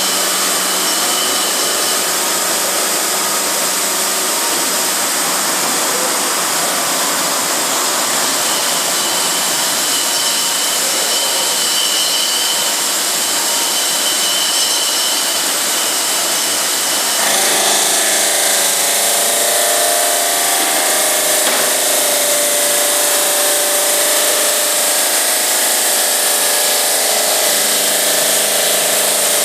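GMM Brio Easy CNC bridge saw cutting 4 cm granite with its diamond blade, a steady loud grinding noise. About 17 seconds in the sound changes, growing a little louder and taking on a steady tone.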